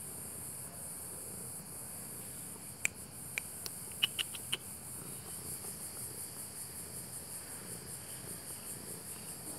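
Steady, high-pitched chirring of insects. About three seconds in comes a quick run of about seven sharp clicks, spread over a second and a half.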